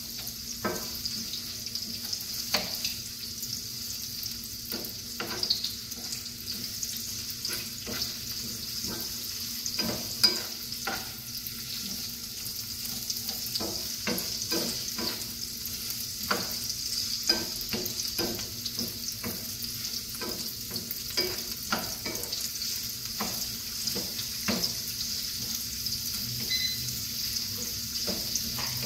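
Sliced red onions and garlic sizzling in oil in a frying pan, with a steady hiss, while a wooden spatula stirs them, scraping and tapping against the pan many times.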